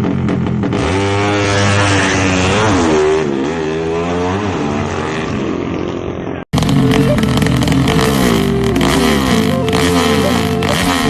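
Drag-racing motorcycle engine being revved, its pitch rising and falling a few times. About six and a half seconds in, an abrupt cut switches to another engine running hard at steady revs.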